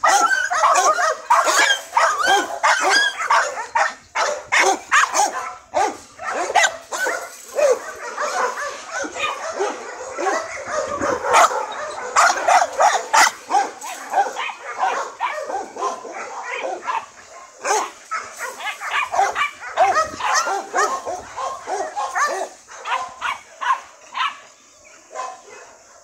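Dogs barking and yipping, short high calls following one another almost without pause.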